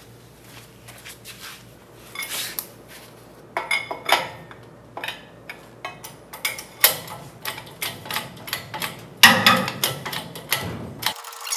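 Hydraulic jack on a car-body rotisserie stand being pumped by hand, raising the rear of the body: a run of irregular metallic clanks and clicks from the handle and stand, loudest about three-quarters through.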